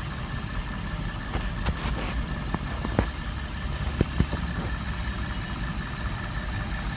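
Lexus GS300's V6 engine idling steadily, now starting and running after its crank-no-start complaint. A few sharp clicks or knocks sound over it in the middle, three of them louder, around the third and fourth seconds.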